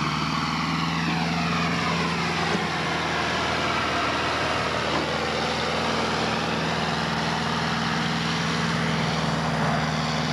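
Farm tractor's diesel engine running hard under load while pulling the weight sled. Its pitch drops about a second in and climbs again past the middle.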